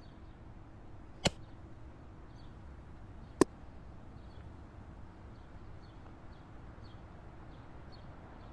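Air rifle firing twice, about two seconds apart: two sharp, very short cracks, the second louder with a brief ring. Faint high chirps repeat about twice a second underneath.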